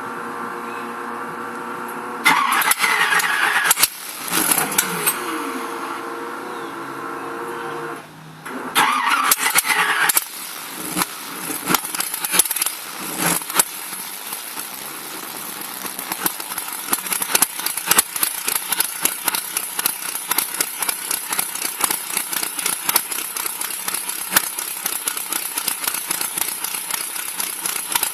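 Chevrolet DZ302 small-block V8 in a boat, running through open headers, starting up: a steady whine for about two seconds, then the engine catches loudly, falters, catches again near nine seconds in and settles into a fast, uneven pulsing idle. The sound overloads the microphone and comes out distorted.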